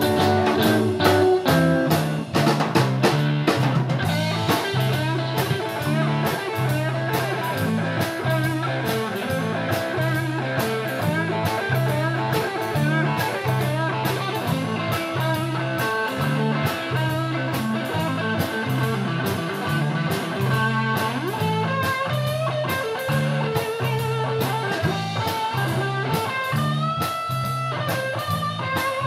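Live stoner-blues rock trio playing an instrumental stretch: electric guitar lines over a repeating bass-guitar riff and a steady drum-kit beat. Near the end the guitar holds a long high note.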